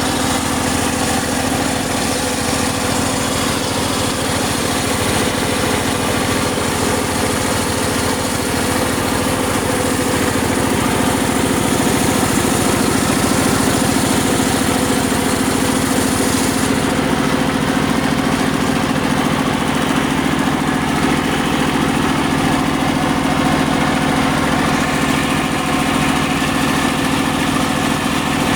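Engine-driven circular saw machine running with a steady machine hum. A high hiss drops away a little past halfway while the hum carries on.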